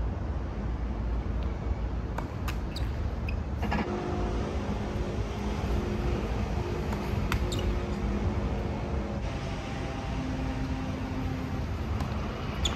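Steady low rumble of road traffic, with a droning hum of several steady tones through the middle and a few faint sharp clicks.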